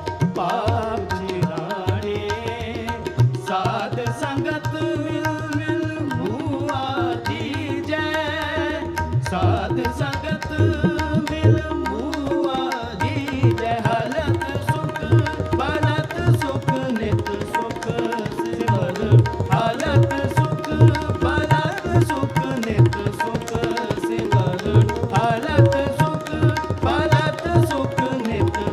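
Gurmat Sangeet kirtan ensemble playing a partaal in Raag Dhanasri: tabla keeps a steady beat with regular bass strokes under a harmonium with a held drone note and the gliding melody of the bowed dilruba and taus. The tabla's bass strokes come through more strongly in the second half.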